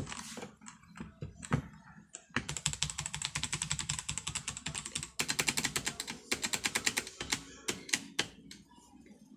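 Typing on a LEAVEN K550 mechanical keyboard: a few scattered key clicks, then two fast runs of rapid keystrokes with a brief pause between them, then a few more keystrokes near the end.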